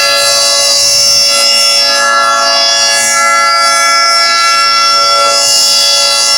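Federal Signal 2T22 dual-tone outdoor warning siren sounding its Alert signal on a monthly test: a loud, steady chord of two tones held at full pitch.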